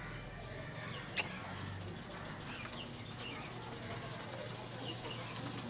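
Eating by hand from a steel plate: one sharp click about a second in, over a steady low hum and faint bird chirps.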